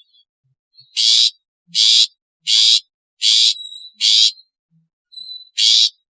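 Long-tailed shrike (cendet) giving a series of harsh, noisy calls, six in about five seconds, with a faint thin whistled note between some of them.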